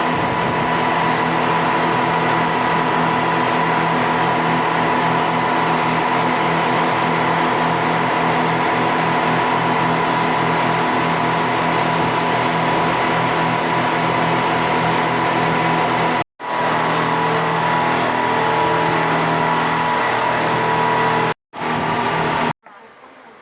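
Speedboat engines running steadily at speed, a loud even drone with a constant pitch, broken by two brief gaps.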